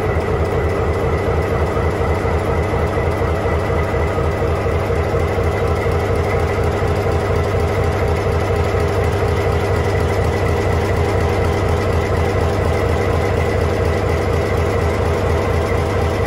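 EMD 16-645 V16 two-stroke diesel engine running steadily, with an even, rapid beat that keeps the same speed throughout. Its valve covers are open, so the rocker arms, valve springs and injectors are heard working directly.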